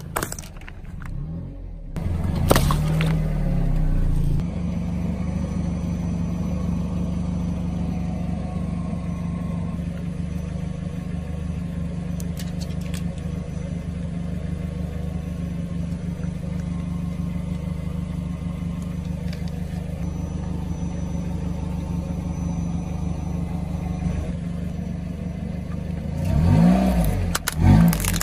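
Car engine idling steadily for a long stretch, then revving as the car rolls forward near the end. Right at the end there is a sharp crack as the tyre runs onto a smartphone.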